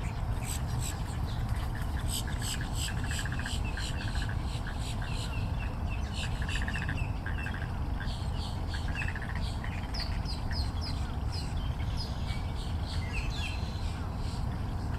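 Several wild birds calling over one another: many short, high chirps and squawks with buzzy trills, over a steady low rumble.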